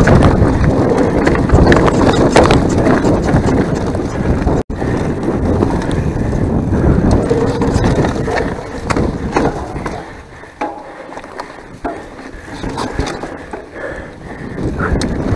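Mountain bike descending a rough enduro trail: tyres rolling over dirt and rocks while the bike rattles and clatters, picked up by a chest-mounted action camera. The rattle is loud for about the first ten seconds, eases off for a few seconds, then picks up again near the end.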